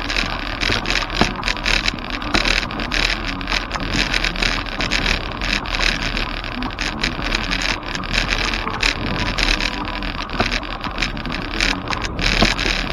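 Bicycle tyres crunching over loose gravel, a steady crackling hiss with many small clicks and pops as the bike rolls along.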